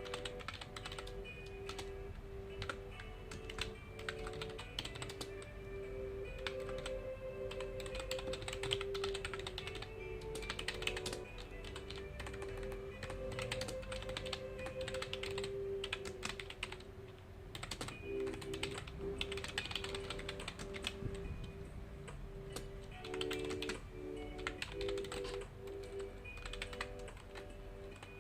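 Computer keyboard typing in quick, irregular runs of key clicks, over soft background music of slow held notes.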